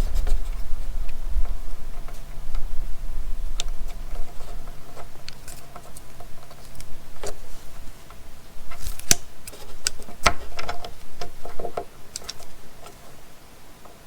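Irregular light clicks and ticks of small hand work on wiring, thickest in the second half.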